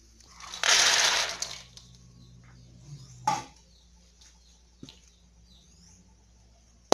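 Freshly roasted peanuts poured into a stainless-steel bowl: a rattling rush of nuts on metal lasting about a second. A single short knock follows about two and a half seconds later.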